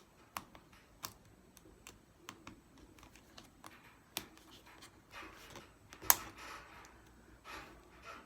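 Scattered small clicks and taps from hands working on the opened Dell Chromebook 3100, with soft rustling between and one sharper click about six seconds in.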